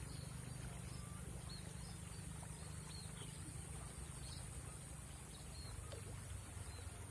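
Faint outdoor ambience: a steady low rumble, a constant thin high-pitched whine, and scattered faint short chirps.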